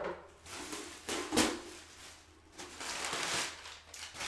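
Plastic wrapping crinkling and a cardboard box being handled: a sharp knock at the start, a louder one just over a second in, and a longer stretch of rustling about three seconds in.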